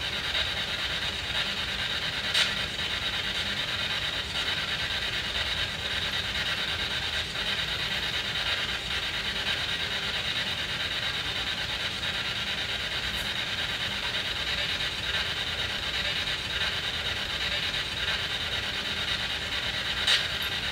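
SB7 spirit box sweeping through radio stations: a steady, choppy hiss of static, with a sharp click about two seconds in and another near the end.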